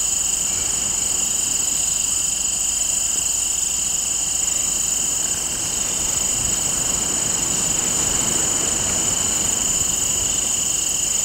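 Steady chorus of field insects, crickets among them, trilling continuously at two high pitches with no break.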